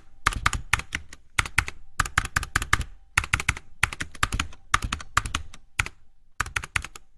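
Computer keyboard typing: quick runs of key clicks in short bursts, with a brief pause about six seconds in.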